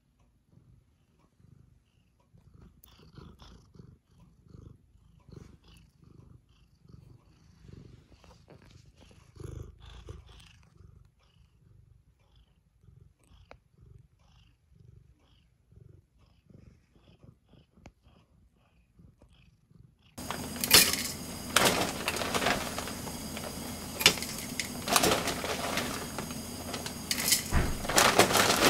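Domestic cat purring close up, a soft low purr that pulses with its breathing, about one and a half pulses a second. About twenty seconds in it gives way to louder kitchen handling noise: rustling with several sharp clacks around a plastic food-chopper bowl of rolled oats.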